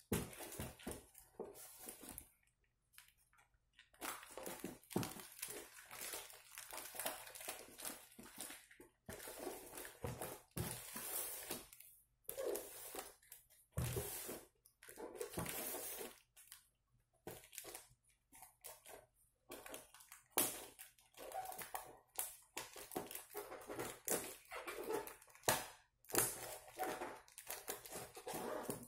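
Scissors snipping and slicing through packing tape on a taped cardboard box, mixed with the crinkle and scrape of the tape and cardboard as the box is handled and turned. The sounds come in irregular rustling bursts and short clicks.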